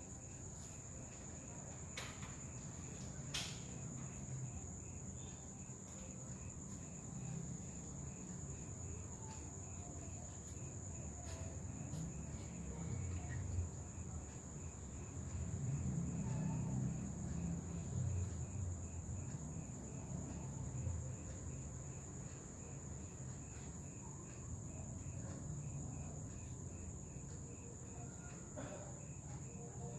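Crickets trilling steadily, a continuous high-pitched tone with a softer pulsing chirp below it. Under them runs a low rumble that swells in the middle, and two sharp clicks come about two and three seconds in.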